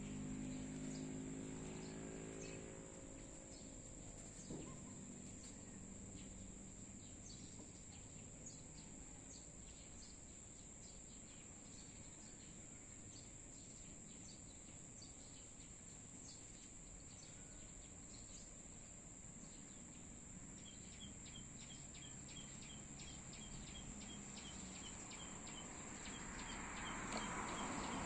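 Steady high-pitched trill of insects with faint scattered ticks, and a run of quick, evenly repeated chirps, about three a second, in the last quarter. A low buzz of bees at the flowers fades out in the first few seconds.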